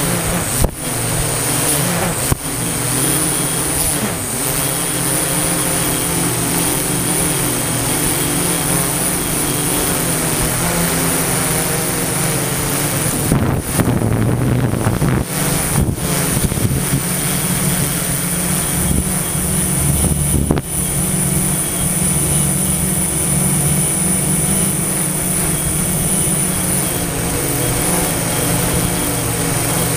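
Quadcopter drone's electric motors and propellers running steadily, heard through its onboard camera as a loud, even hum with a thin high whine and a rushing noise over it. A rougher, louder rush comes about halfway through.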